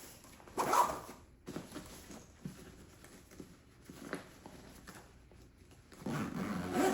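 Backpack zipper being pulled shut in short strokes, with handling noise. Twice, about a second in and again near the end, there is a louder brief vocal sound.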